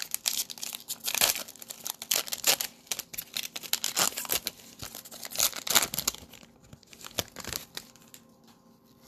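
Plastic wrapping on a blaster box of basketball trading cards being torn open and crinkled by hand: a busy run of crackling and ripping that grows sparser near the end.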